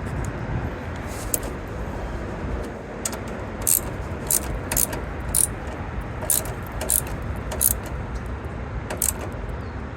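Hands working plastic tail-light parts: a string of about a dozen short, sharp plastic clicks and ticks, coming irregularly from about three seconds in, over a steady low rumble.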